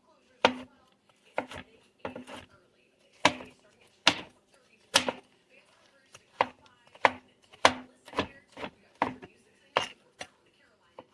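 Knife chopping food on a cutting board: a run of sharp, irregular chops, roughly one to two a second.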